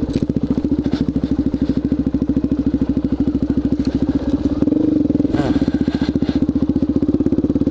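Suzuki DRZ400SM's single-cylinder four-stroke engine running at low speed with even, closely spaced firing pulses, its exhaust fitted with a silencer insert.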